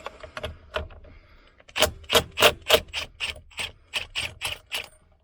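Socket ratchet on a long extension loosening the steering wheel's 15/16 bolt: a few light clicks, then about a dozen quick ratcheting rasps, roughly three a second, as the bolt is turned out.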